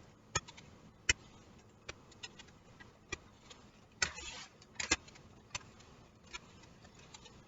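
Onion in a hand guard being pushed over a mandoline slicer's blade: a series of sharp clicks and knocks, irregular and about one a second, with a short scraping stroke about four seconds in.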